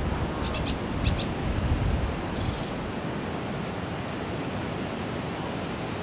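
Steady rushing outdoor noise that swells with a low gust in the first two seconds. A bird gives two quick groups of high chirps about half a second and a second in.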